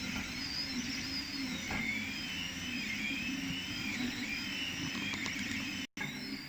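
3D printer printing infill, its stepper motors whining in pitches that rise and fall over and over as the print head sweeps back and forth, over a steady low hum. The sound cuts out for an instant near the end.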